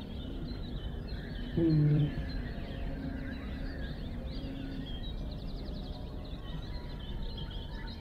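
Many small birds chirping and twittering over a low rumble, in a nature-sound passage of an experimental music track. A brief, loud, low-pitched tone sounds about a second and a half in.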